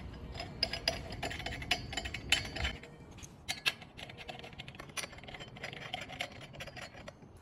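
Chrome-plated metal table legs being twisted onto threaded studs and set on a glass shelf: a run of sharp metallic clicks and clinks with a slight ring, busy in the first few seconds and sparser after.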